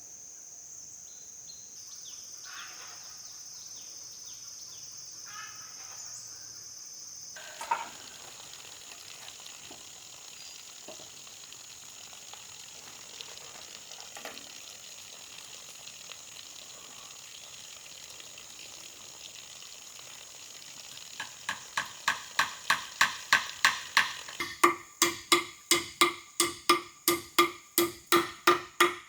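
Steady high insect buzzing, then in the last third a fast, even run of loud strikes, about three a second, each with a short ringing tone.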